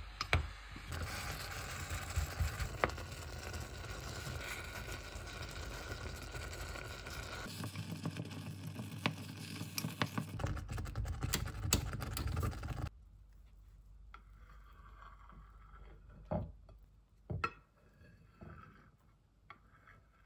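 Apricots and sugar simmering in a small saucepan, a steady bubbling hiss with the clicks and scrapes of a spoon stirring against the pan. After a cut it goes quieter, with a few knocks of a knife cutting French toast on a ceramic plate.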